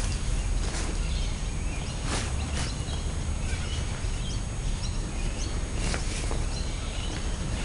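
Outdoor background noise with a steady low rumble, faint bird chirps, and a few short rustles and knocks from the kayak and its bag being handled.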